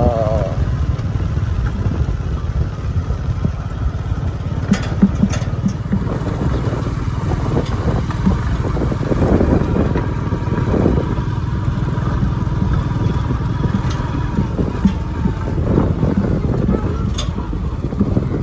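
Small engine running steadily as it tows a trailer loaded with banana suckers over a rough dirt track, with a few short knocks during the ride.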